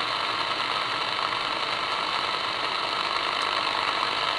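Steady static hiss from a President Lincoln CB transceiver receiving on upper sideband: the empty channel between transmissions, with no signal coming in.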